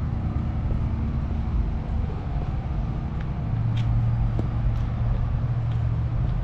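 A steady low motor drone that grows stronger about halfway through, with a few light ticks over it.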